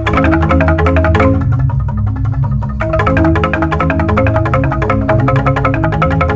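Balinese jegog ensemble of bamboo-tube xylophones struck with mallets, playing a fast interlocking piece: rapid high strokes over deep, sustained bamboo bass tones. The upper parts thin out briefly about a second and a half in, then come back at full density just before three seconds.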